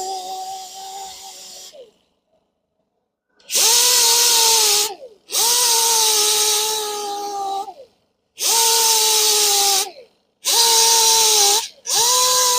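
Power tool with a 60-grit abrasive disc grinding curb rash out of an alloy wheel's spokes. It runs in about five bursts of one to two and a half seconds, a steady whine with a hiss, and its pitch drops each time it is let off and winds down.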